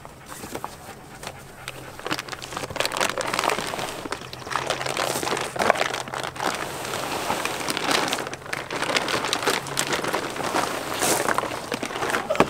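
Plastic wrapping and cardboard box crinkling and rustling as a plastic-wrapped roll of electric fence netting is worked out of its box and lifted; dense, irregular crackling that grows louder about two seconds in.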